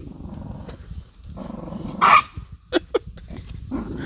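Yorkshire terriers on a mouse hunt: one short bark about two seconds in, then two quick yips, over a low steady noise.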